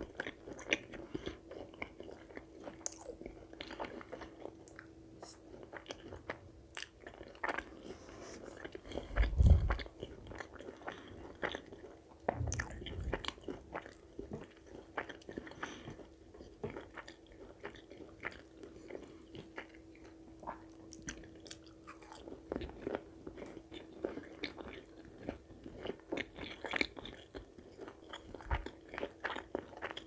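Close-miked eating: chewing and biting on chicken curry and puri, with many small wet mouth clicks and smacks. A loud low thump about nine seconds in and a smaller one about three seconds later, over a faint steady hum.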